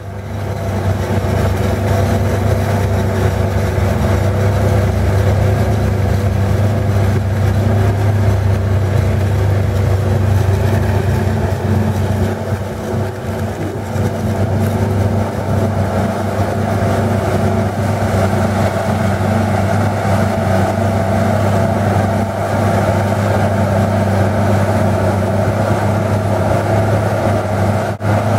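Large diesel farm machinery running steadily: a constant deep engine drone with a steady higher hum above it, easing slightly about halfway through.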